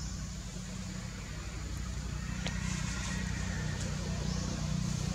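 Low, steady rumble of an engine running, growing slightly louder, with a faint sharp click about two and a half seconds in.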